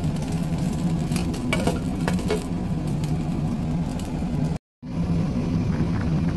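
Cookware clinking, a few light taps of the glass pot lid and metal against the stainless pot over a pot simmering, with a steady low hum underneath. The sound drops out for a moment about three quarters of the way through.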